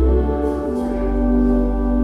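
Pipe organ holding a sustained chord over a deep pedal bass note, the bass moving to a new note about a second in.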